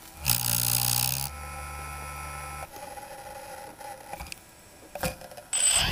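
A quadcopter drone's small electric motors, heard through its onboard camera, start up with a rush of air and a whirring hum about a third of a second in. The sound settles to a steadier, quieter hum that stops under three seconds in. A click follows near the end, then a high beep.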